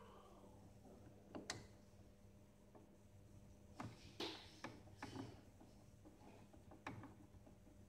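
A handful of faint, scattered clicks and scrapes from a screwdriver turning screws into a Saeco Incanto coffee machine's casing, over a faint steady hum.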